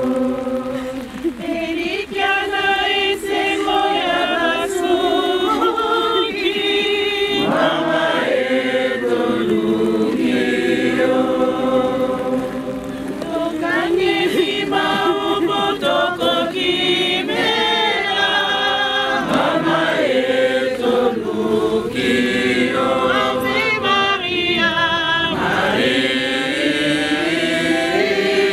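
A group of mourners singing a song together, many voices holding long notes.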